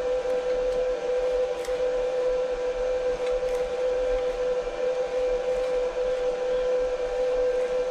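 Steady high-pitched whine of a running workshop machine motor, one unbroken tone with overtones, over a few faint light ticks from a tap being turned by hand in a tap wrench.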